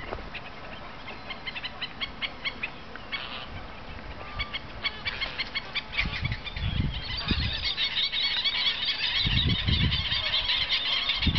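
A flock of wading birds calling: a steady stream of short high chirps that thickens into a dense, continuous chatter from about two-thirds of the way in. A few low thumps break in now and then.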